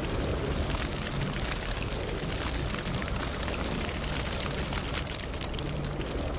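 Campfire burning, wood crackling with many small sharp pops over a steady low rush of flame.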